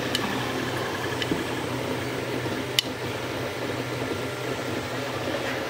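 Steady whirr of small cooling fans with a low hum, and one sharp click nearly three seconds in.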